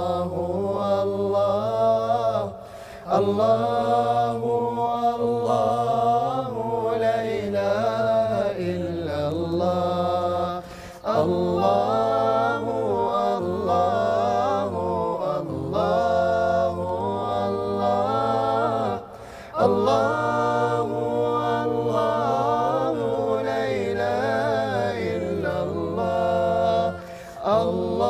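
Male nasheed singers singing a cappella in layered parts: a low held bass line under a moving melody with harmony above it. The singing runs in long phrases with a short break about every eight seconds.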